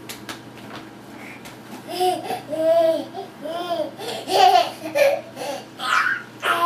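A baby babbling and laughing: a run of short, high-pitched, rising-and-falling vocal sounds that starts about two seconds in.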